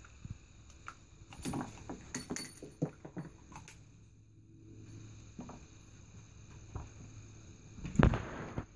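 Spent .460 S&W Magnum brass cases clinking as they are ejected from the open cylinder of a Smith & Wesson Performance Center revolver, a quick run of metallic clicks and clatters over a couple of seconds. A dull thump follows near the end as the heavy revolver is set down on the padded shooting block.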